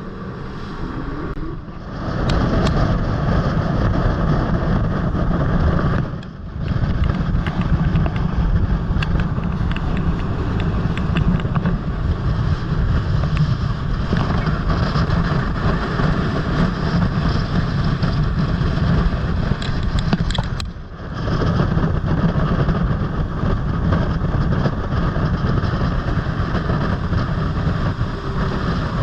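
Motorboat underway at speed: steady engine and hull-on-water rush, with wind on the microphone. The sound drops briefly twice, about six seconds in and again about twenty-one seconds in.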